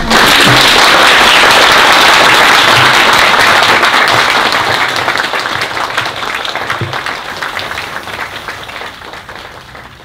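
An audience applauding: dense clapping starts at once at full strength, holds for a few seconds, then gradually fades out.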